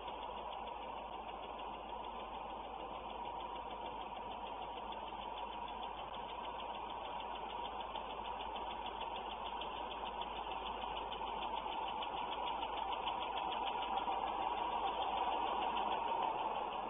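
Maybach-engined diesel-hydraulic locomotive's engine running, getting louder in the second half as the locomotive moves off and draws nearer with its train.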